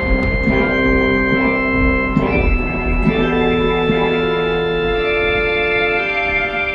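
Organ music: slow, long-held chords that change a couple of times.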